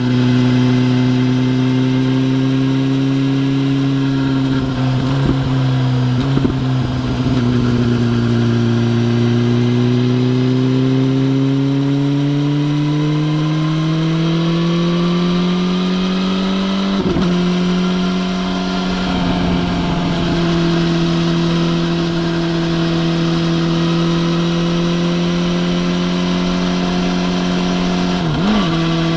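BMW S1000RR's inline-four engine running at a steady cruise. Its note climbs gradually in pitch partway through and then holds, with a few brief dips in the note.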